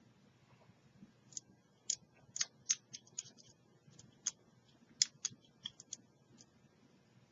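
Quiet, irregular clicks of a lock pick working the pin stack of a Master Lock 30mm padlock under bottom-of-keyway tension during single pin picking, starting about a second in.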